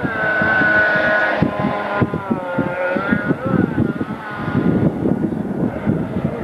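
Stand-up jet ski's two-stroke engine running hard, its whine dipping and rising several times as the rider carves turns, over wind buffeting the microphone.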